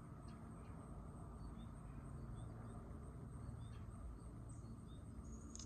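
Quiet background: a faint steady low hum with a few faint, scattered short high chirps or ticks.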